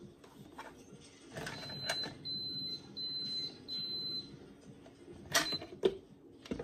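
Panasonic electric pressure cooker's electronic signal beeping four times, each beep about half a second long and evenly spaced. Clicks and knocks of the appliance being handled come around it, the loudest two close together near the end.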